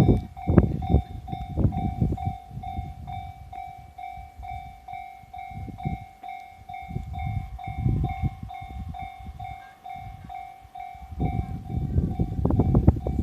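Japanese level-crossing warning bell ringing with a steady, quickly repeating electronic ding, over uneven low rumbling. The rumbling grows much louder about eleven seconds in as the E531 series electric train approaches.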